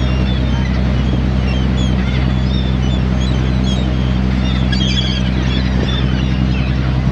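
A boat's engine drones steadily while a flock of seabirds calls over it, many short, high cries overlapping throughout.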